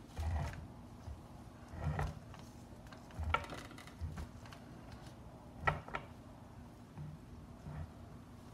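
Irregular clicks and knocks from objects being handled and set down on a work table, some with a dull thump, about half a dozen over several seconds.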